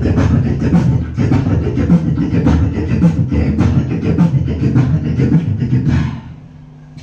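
Beatboxing into a handheld microphone: a fast, dense vocal beat with deep bass, which stops about six seconds in.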